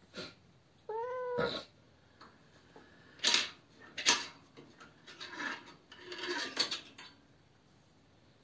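A cat meows once about a second in. This is followed by several loud sharp knocks and scraping noises, the loudest around three and four seconds in.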